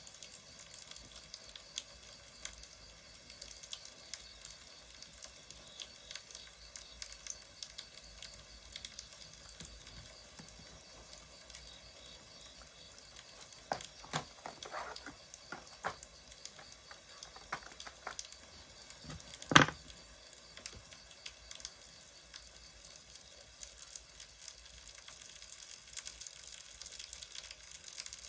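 Wood fire crackling: a faint steady hiss dotted with small pops. A cluster of louder clicks comes around the middle, and one sharp, loud click follows a few seconds later.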